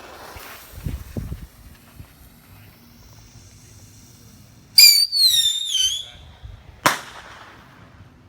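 A whistling firework shrieking for just over a second, its pitch falling and wavering, followed about a second later by a single sharp bang. A couple of low thumps sound about a second in.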